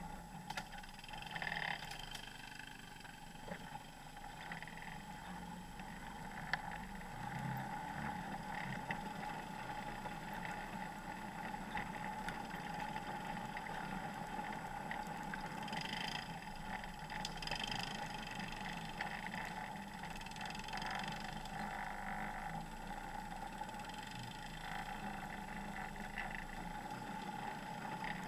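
Off-road vehicle's engine running steadily while driving, with a steady whine and a few short knocks along the way.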